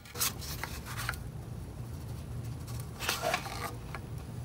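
Tool and metal handling noises at a car's oil drain plug as the new plug is threaded in and tightened with a torque wrench: two short scraping, clicking bursts about three seconds apart, over a faint low hum.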